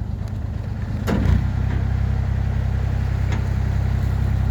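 A boat's inboard engine running steadily at low revs; just after a second in there is a short knock, and the engine note then gets louder and steadier as it picks up.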